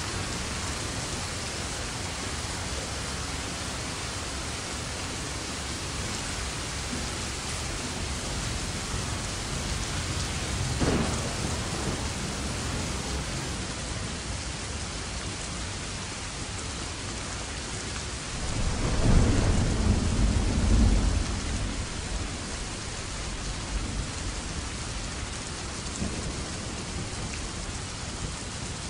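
Steady rain falling, with a short rumble of thunder about eleven seconds in and a louder, longer roll of thunder a few seconds later.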